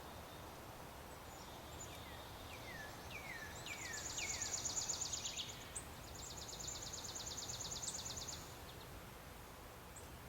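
Wild songbirds calling: a string of quick downslurred notes, then two rapid high trills of about two seconds each, over steady outdoor background hiss.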